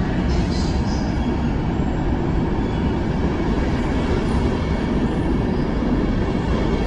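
PKP Intercity passenger coaches rolling past on the rails of an underground station, a steady loud rumble of wheels. A few brief high squeaks come in the first second.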